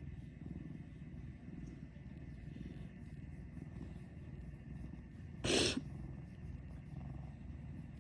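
Domestic cat purring steadily, a low continuous rumble, close to the microphone. About five and a half seconds in there is one brief loud burst of noise.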